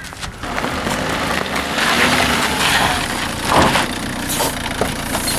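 Opel Corsa hatchback's engine running steadily, with a brief louder noise a little past halfway.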